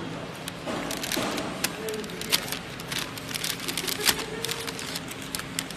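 Sealed kraft-paper pillow packs crackling and rustling as they are handled, with irregular sharp crinkles over the steady running noise of a flow-wrap packing machine.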